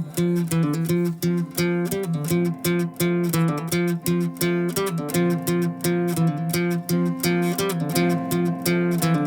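Instrumental passage of a 1960s-style psychedelic pop song: acoustic guitar chords strummed in a steady rhythm, with no singing.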